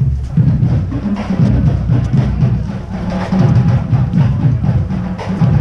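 Marching band drumline playing a marching cadence: rapid drum strokes over a steady low bass drum part.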